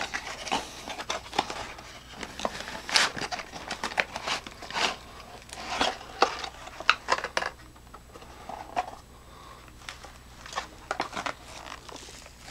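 Flashlight box being opened and its packaging handled: irregular rustling and crinkling with scattered clicks and scrapes.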